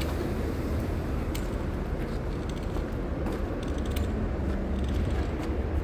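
City street ambience heard on foot: a steady low rumble of traffic, with a few scattered light clicks.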